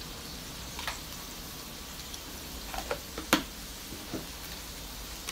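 Tofu and minced pork sizzling steadily in a wok, with a few light clicks and taps scattered through, the sharpest about three seconds in.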